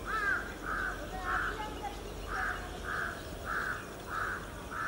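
A crow cawing over and over, about eight harsh calls roughly half a second apart, with a short pause about one and a half seconds in.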